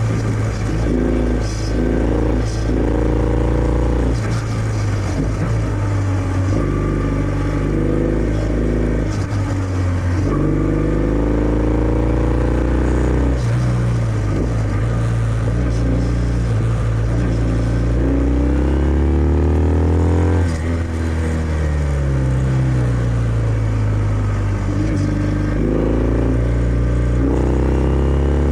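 Kawasaki W650's air-cooled parallel-twin engine through its stock exhaust, riding along under load. The pitch climbs as it pulls and then breaks and drops at gear changes, several times over.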